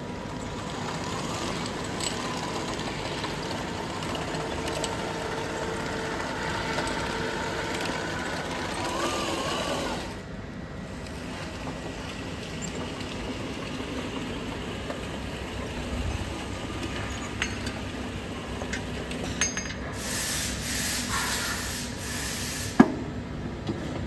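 1:6 scale all-metal M26 Pershing model tank driving under remote control: a steady motor whine with running track noise, the whine rising and falling in pitch near the middle. The sound changes and drops a little about ten seconds in, and a single sharp click comes near the end.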